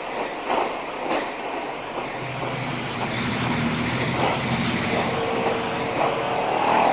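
Electric tram running on street track: a steady rolling rumble, with a couple of sharp clicks about half a second and a second in, and a thin whining tone near the end.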